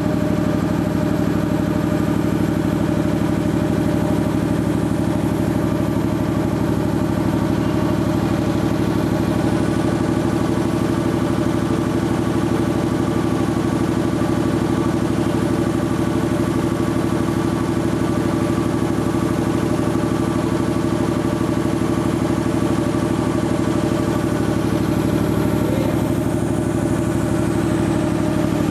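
Sperre HV2/200 two-stage reciprocating air compressor running steadily on a test run, a constant mechanical hum with a fast, even clatter.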